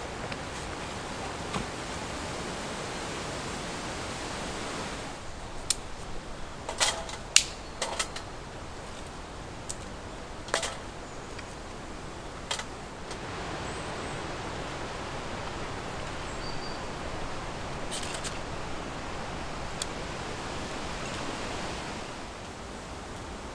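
Woodland ambience: a steady rustle of leaves in the breeze. A quieter stretch in the middle carries a scatter of sharp snaps and clicks from dry twigs being broken by hand.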